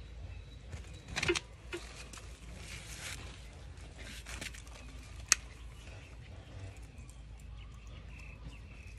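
Rustling and scattered clicks of hands working a potted rose: plastic pot, grow bag and soil being handled, with a louder rustle about a second in and one sharp click about five seconds in.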